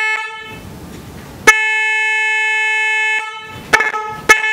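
Single electric snail horn sounding in blasts with a steady, bright tone. One blast ends just at the start, a long blast of nearly two seconds starts about a second and a half in, then come two short taps and another held blast near the end.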